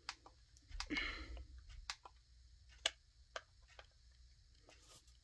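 Buttons on a Smartro SC91 projection alarm clock clicking as they are pressed: about half a dozen sharp, irregular clicks roughly a second apart, with a soft handling rustle about a second in.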